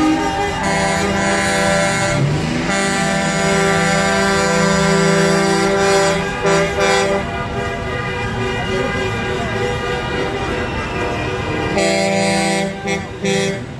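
Truck air horns sounding in long, held blasts, several overlapping at different pitches, breaking into shorter on-off honks near the end.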